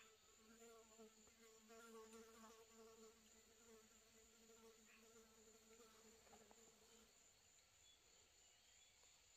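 Faint buzzing of a flying insect, wavering in pitch and dying away about seven seconds in, over a steady high-pitched insect drone.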